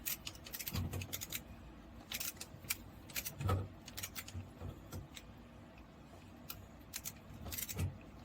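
Screws being tightened by hand into a mounting plate: irregular small metallic clicks and taps from the tool and screw, with a few dull knocks.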